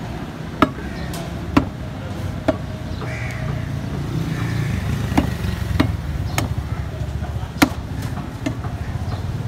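Butcher's cleaver chopping beef on a round wooden chopping block: about eight single chops at uneven spacing, roughly one a second, over a low steady background rumble.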